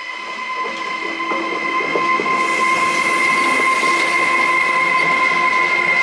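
Intermodal freight train hauled by an ES64F4 and a Vectron electric locomotive pulling away past the microphone, growing louder over the first two seconds. A steady high whine runs over the rumble of the wheels, with a few clicks about a second in.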